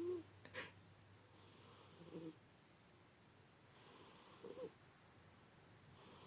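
A 16-year-old tabby cat snoring faintly in her sleep, a snore like a human's: a hissy breath about every two and a half seconds, three in all, each ending in a short low rasp.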